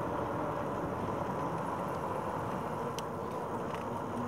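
Steady riding noise of a RadRover 5 fat-tire e-bike on a trail: tires rolling, with a faint steady hum.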